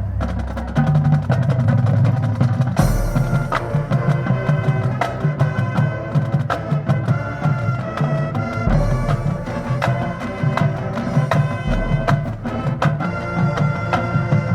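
Marching band playing: sustained pitched wind and brass lines over drumline and mallet percussion, with a quick, steady stream of strikes and deep drum hits.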